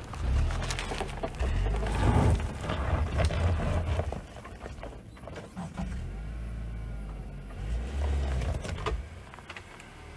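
Dacia Duster 1.3 TCe petrol engine pulling the car up a loose dirt climb, with the tyres crunching and knocking over dirt and stones. Louder in the first four seconds, then quieter.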